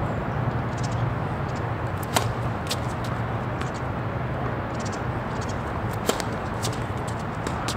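Sharp knocks of a tennis ball being hit during play: a loud strike about two seconds in and another about six seconds in, with fainter knocks between. A steady low rumble runs underneath.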